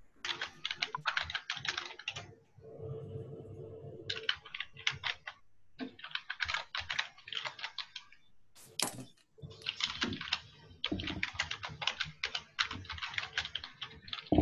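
Typing on a computer keyboard: several quick runs of keystrokes with short pauses between them, and a single harder key tap about two thirds of the way through.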